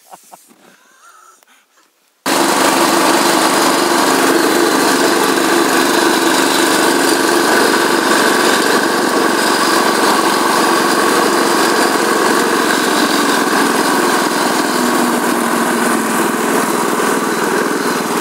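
Snowmobile engine running at a steady speed while riding, loud and close on board, with an even, unchanging pitch. It starts abruptly about two seconds in and stops suddenly at the end.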